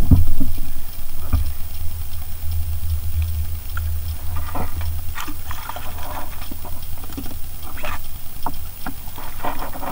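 Water lapping and splashing around a small fishing boat, as scattered short splashes, over a low steady rumble that fades out about halfway through.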